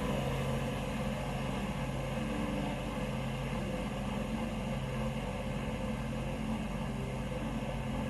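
Steady drone of propeller aircraft engines, a constant sound with several held low tones.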